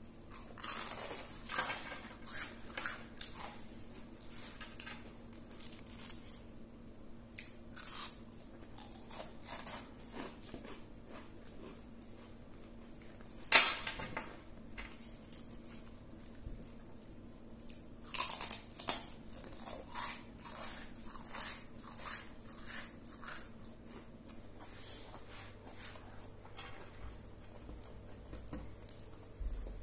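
Spread being scraped across crisp toasted rusks with a spoon, and crunchy bites into a rusk, in irregular crackly bursts with one sharp crunch about halfway through.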